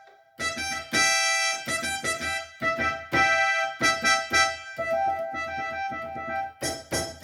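Yamaha PSR-530 electronic keyboard playing one of its preset voices: a run of short notes over a held tone, starting after a brief pause.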